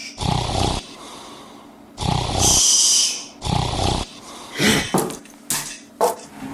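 A person snoring loudly three times, each snore a rough, rasping rattle about half a second long, roughly a second and a half apart. In the last two seconds comes a quick run of short, sharp knocks.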